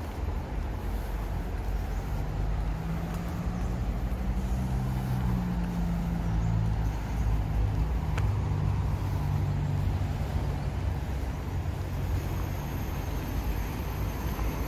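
Road traffic under the footbridge: a steady rumble with a heavy vehicle's engine drone swelling and fading through the middle. A faint high whine joins near the end.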